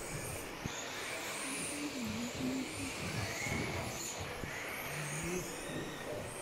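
Radio-controlled off-road racing buggies running around a dirt track, their motors whining and rising and falling in pitch as they speed up and slow down.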